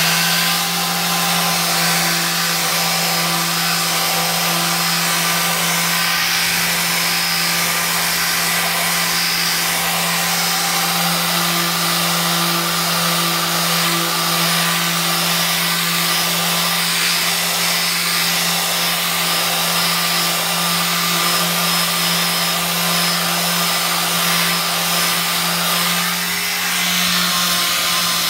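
Electric delta sander running steadily with 240-grit paper, sanding paint drips off a painted boat hull: a steady motor hum under a loud hiss of the pad on the paint.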